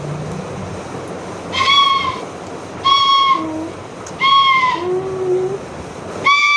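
Small bamboo flute (baanshi) blown by a child in single shrill notes, all on about the same pitch: three short blasts roughly a second and a half apart, each sagging slightly at its end, and a fourth starting near the end.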